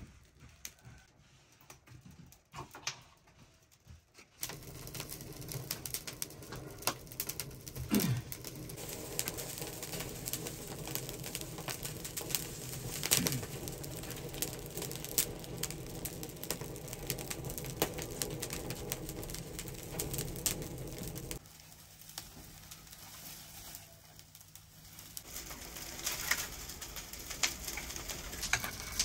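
Dry brushwood and thorny twigs crackling and snapping as they burn inside a large clay tandoor, many sharp pops over a low steady hum. The crackling starts about four seconds in, drops away for a few seconds past the middle and picks up again near the end.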